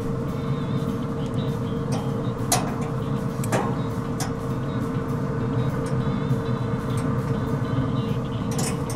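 Steady hum of the Pit Boss Pro Series 1600 Elite pellet grill's fan running, with sharp metallic clicks of tongs against the grill grates about two and a half and three and a half seconds in and again near the end, as chicken legs are turned.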